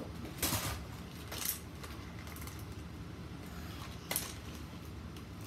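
Plastic toy dinosaurs being handled and knocked together, giving a few short clacks and rustles about half a second, a second and a half, and four seconds in.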